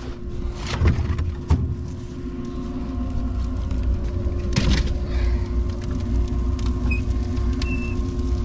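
Heatmaster G7000 outdoor wood furnace running with its draft fan on, a steady low hum while the water is still below the 180-degree shut-off. Sharp knocks about one, one and a half and four and a half seconds in, as a block of wood goes into the firebox.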